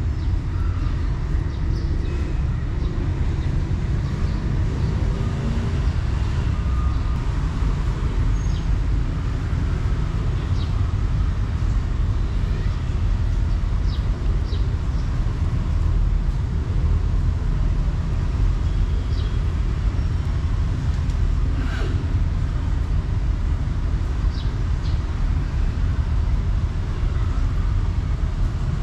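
Steady low background rumble, with a few faint short clicks now and then.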